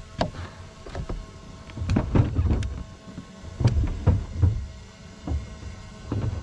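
Irregular low thumps and knocks on a fibreglass bass boat's deck as someone walks and moves about on it, with a few sharp clicks, loudest in clusters about two and four seconds in.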